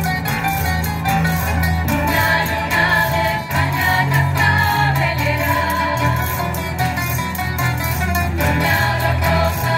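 A women's student tuna singing together to strummed guitars and other plucked string instruments, played live through a PA system.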